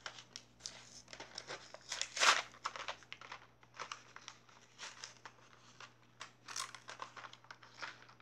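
Toy blister packaging being pulled apart by hand: the cardboard backing card and plastic blister crinkling and tearing in irregular bursts, loudest about two seconds in.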